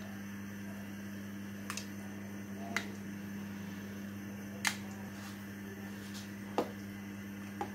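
About five sharp clicks and light knocks of a spoon and spatula against a stainless steel pot and a small bowl as tomato concentrate is scraped into the soup and stirred in, over a steady low hum.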